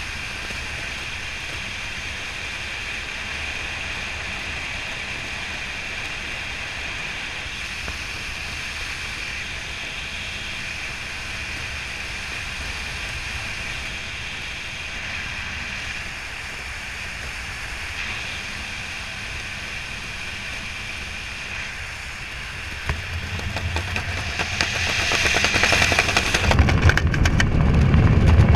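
Wind rushing past a helmet-camera microphone during a parachute canopy descent: a steady hiss that grows louder about 23 seconds in, turning into heavy low buffeting on the microphone near the end.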